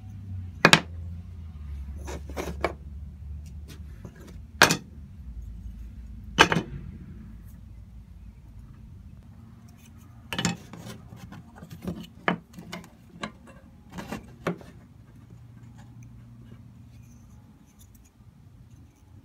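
Sharp clicks and knocks of a steel knife blade and wooden handle pieces being handled and set down on a wooden workbench. A few come singly in the first seven seconds, then a quicker run of about eight between ten and fifteen seconds in, over a low steady hum.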